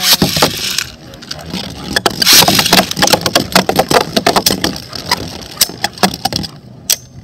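Two Beyblade spinning tops, Hasbro Union Achilles A5 and Bushin Ashindra, are launched into a plastic stadium with a sudden whoosh and clatter, then spin and grind against the bowl while striking each other in rapid sharp clacks. The hits are densest in the first few seconds and thin out toward the end.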